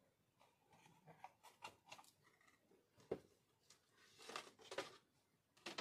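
Near silence with a few faint clicks and rustles of wires and a plug being handled; the sharpest click comes about three seconds in, with a few more shortly after.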